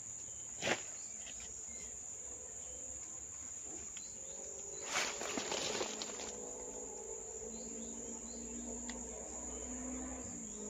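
Steady high-pitched insect chorus, like crickets, with a sharp click about a second in and a brief noisy scuffle about five seconds in.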